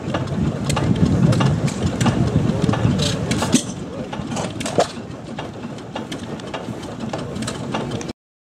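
Old John Deere two-cylinder tractor engine running steadily while belted to a stationary hay press: a low rumble with frequent sharp knocks. The rumble gets quieter about three and a half seconds in, and the sound cuts off suddenly near the end.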